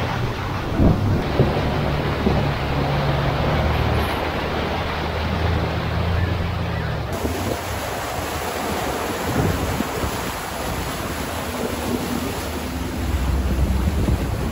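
Off-road vehicle driving through a flooded dirt road: a steady rush of water splashing around the tyres and body, over a low engine hum that drops away about halfway through.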